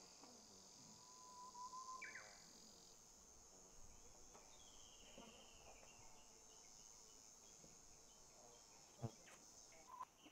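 Faint steady high trilling of insects in the grass, with a few brief whistled notes and a single sharp knock about nine seconds in.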